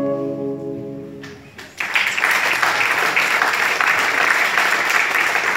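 A plucked-string chord rings out and fades away. About two seconds in, an audience breaks into steady applause, which is the loudest part.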